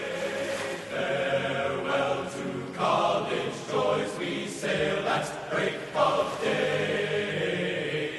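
A choir singing: several voices holding and changing notes together.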